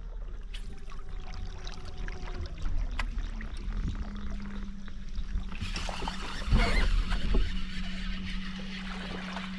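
Kayak's electric trolling motor running with a steady whine that drops in pitch about two and a half seconds in and then holds. Water splashing and gear handling come through around the middle.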